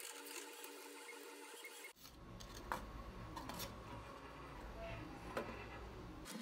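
Faint handling noise of paper-faced foam board being pressed and bent over the edge of a wooden worktable. It cuts off suddenly about two seconds in, giving way to low room noise with a few light taps.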